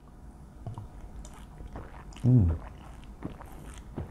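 Two men drinking beer from glass bottles: faint swallowing gulps and small mouth sounds, with one short falling vocal 'ahh' about two seconds in, the loudest sound.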